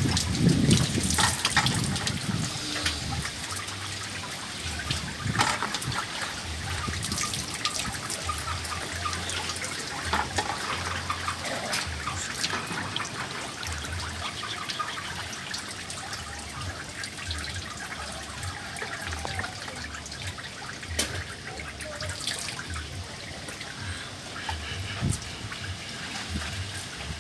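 Strong wind blowing in gusts: a steady rushing hiss, with uneven low rumbles of wind buffeting the microphone and scattered small clicks and rattles. It is loudest in the first couple of seconds.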